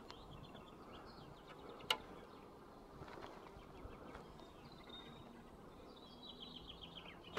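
Quiet forest ambience with faint, high, repeated chirping trills and a single sharp click about two seconds in.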